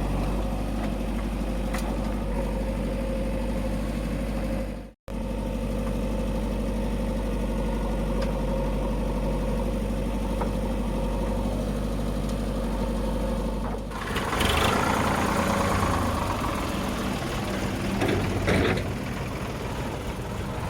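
Heavy diesel engine running steadily at idle. The sound drops out for a split second about five seconds in, and about fourteen seconds in a louder, rougher noise rises over the engine.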